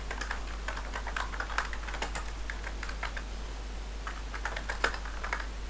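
Computer keyboard being typed on: irregular, quick key clicks over a steady low hum.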